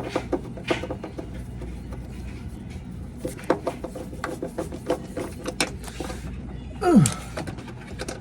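Irregular small metallic clicks and taps of hand tools working the bolts on a washer's motor stator. About seven seconds in there is a short falling groan.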